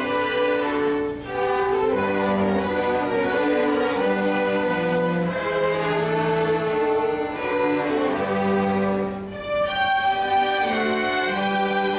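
Small string orchestra of violins and cellos playing a classical piece, with sustained bowed notes. The music dips briefly between phrases about a second in and again near the end, after which the upper strings come in brighter.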